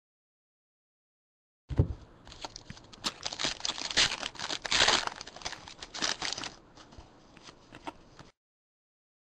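Foil wrapper of a Panini NBA Hoops card pack being torn open and crinkled, with the cards inside sliding against each other as they are handled. It starts about two seconds in and stops about a second before the end.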